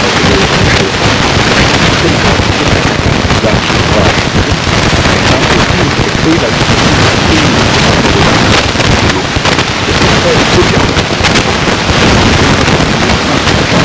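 Loud, steady hiss and crackle of a badly degraded recording, with a voice talking faintly beneath it.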